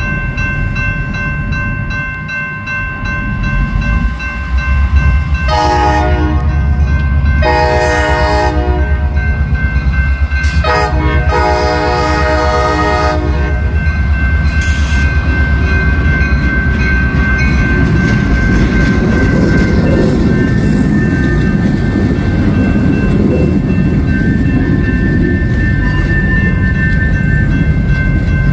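CSX diesel locomotive sounding its horn three times, long, short and long, at a grade crossing while the crossing bell rings steadily throughout. A heavy low rumble of the locomotive and the tank cars rolling past builds up about four seconds in and continues after the horn.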